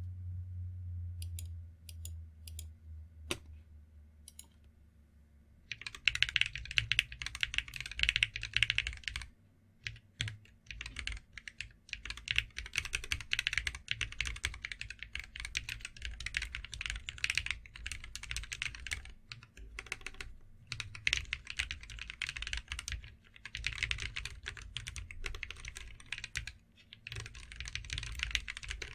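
Typing on a cocot46 mechanical keyboard fitted with AKKO CS Radiant Red linear switches. A few scattered keystrokes come first, then from about six seconds in there is fast, continuous typing in runs of several seconds with short pauses between.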